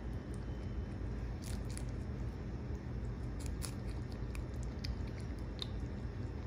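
Rabbit biting and chewing a slice of peach: a run of small sharp clicks, thickest through the middle, over a steady low hum.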